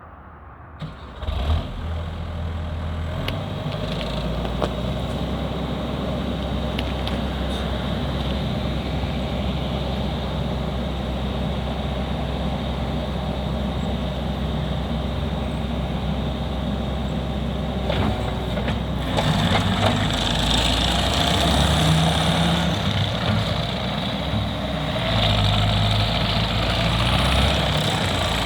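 Case TV380 skid steer's diesel engine starting about a second in, then idling steadily. From about 19 seconds it runs louder for a few seconds, drops back briefly, and runs louder again near the end.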